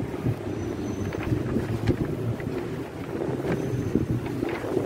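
Wind buffeting the phone's microphone as a steady, uneven low rumble, with scattered light clicks.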